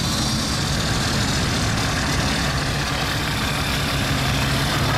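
Off-road 4x4's engine idling steadily, a constant low hum with no revving.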